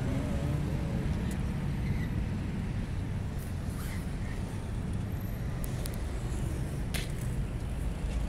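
Steady low rumble of city road traffic, with a few faint sharp clicks scattered through it.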